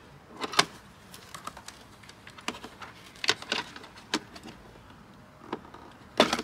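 Plastic speaker clips and a plastic trim tool clicking and snapping as a clip-mounted speaker is pried out of a car's rear door panel. Several sharp clicks come scattered through, the loudest near the end.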